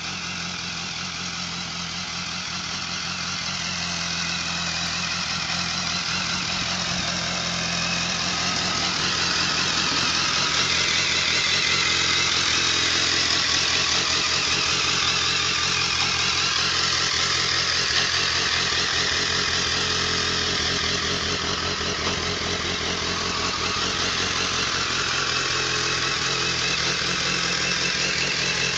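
2007 BMW K1200R Sport's inline-four engine idling steadily at an even pitch, growing somewhat louder over the first ten seconds.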